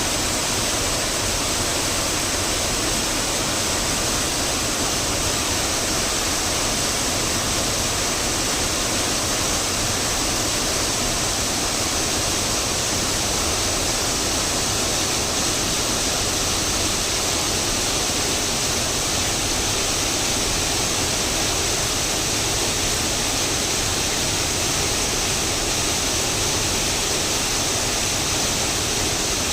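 Waterfall: a steady, unbroken rush of falling water, with a strong high hiss and no change in level.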